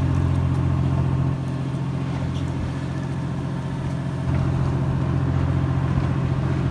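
Fishing boat's engine running steadily with a low hum. It drops a little in level for about three seconds in the middle, then comes back up.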